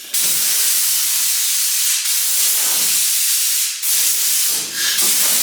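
Compressed air hissing loudly from a shop air tool, broken briefly about two, four and five seconds in.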